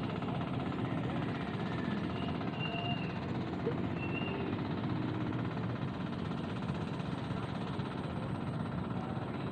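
An engine running steadily in the background, with a few faint short chirps about two to four seconds in.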